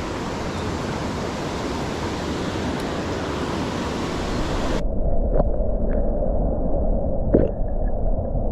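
Steady rush of running creek water. About five seconds in the sound turns suddenly duller and lower, with a few light knocks after it.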